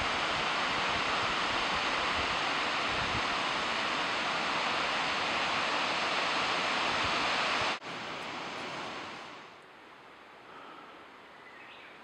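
Kirifuri Falls waterfall rushing with a steady, even noise. About two-thirds of the way through it cuts off and fades to a much quieter forest hush with a few faint high chirps.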